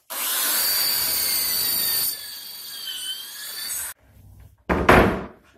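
Power drill with a pocket-hole bit boring a pocket hole through a clamped jig into a melamine cabinet batten: a steady whine with cutting noise, loud for about two seconds, then quieter, its pitch sagging briefly, before it stops about four seconds in. About a second later comes a single heavy thump, a melamine panel being handled on the workbench.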